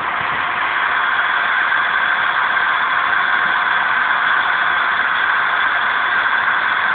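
Steam locomotive No. 186, a 0-6-0 tender engine, standing at the platform with a steady hiss of escaping steam that grows a little louder about a second in.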